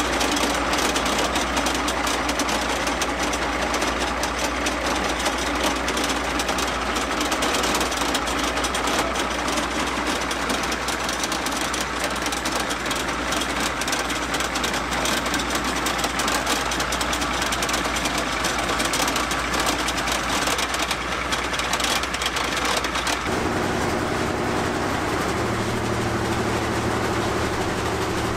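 A tank's 38.8-litre V12 diesel engine idling with a dense, steady clatter; the owners think a few cylinders are not firing. About 23 seconds in the sound changes abruptly and a lower steady hum comes through.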